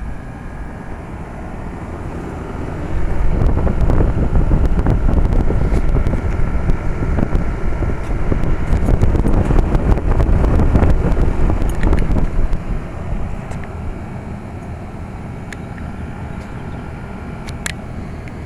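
Carrier Infinity 2-ton heat pump outdoor unit running steadily in cooling mode, compressor and condenser fan on. From about three seconds in until about twelve seconds a louder rush of air buffets the microphone, rumbling over the unit's steady running.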